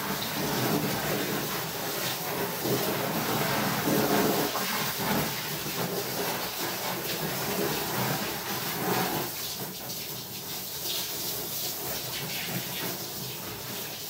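Water running from a handheld shower hose onto a soaked sleeping bag in a bathtub, a steady rushing hiss that turns quieter about nine or ten seconds in.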